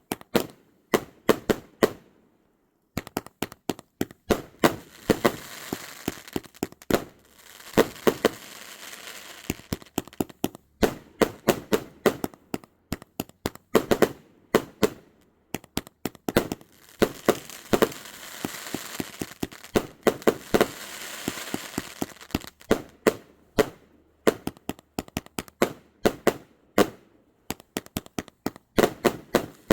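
A 120-shot, 500 g firework cake firing: a rapid run of sharp bangs of launching and bursting shots. There is a brief pause about two seconds in, and a steady crackling haze fills the gaps during two longer stretches.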